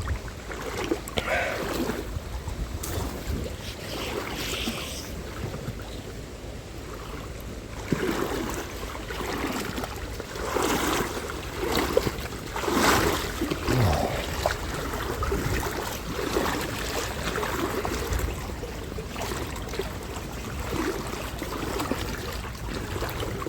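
Irregular sloshing and swishing of river water as a person wades through it, with wind rumbling on the microphone.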